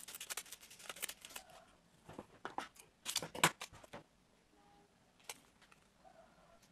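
Double-sided tape and its paper backing crinkling and rustling as they are handled and pressed onto a foam banana squishy: quick crisp crackles through the first second and a half, then a louder cluster of them between about two and four seconds in.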